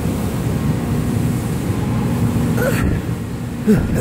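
Steady low mechanical hum, with a few short vocal sounds from a man in the last second or so.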